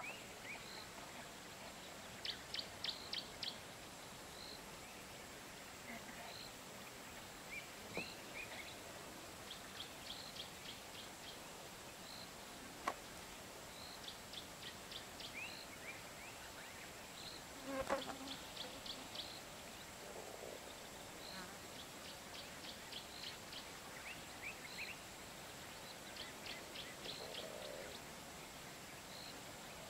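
Faint bush ambience. A high call of five or six quick pulsing notes repeats every few seconds among scattered short chirps from small animals, with a brief soft rustle a little after halfway.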